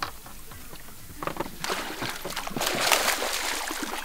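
A hooked pike splashing at the water surface beside a landing net as it is brought in. The splashing starts about a second in and grows louder.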